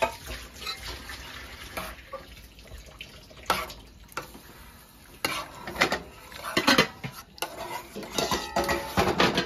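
Metal spoon scraping and clinking against the sides and bottom of a metal pot while stirring a thick fish stew, in irregular strokes that come more often in the second half.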